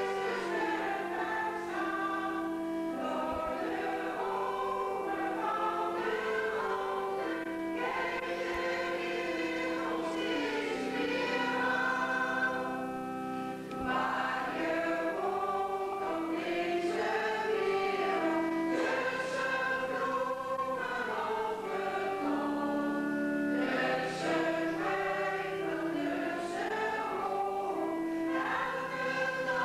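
A choir singing a slow song in long held notes, in phrases with short breaks between them.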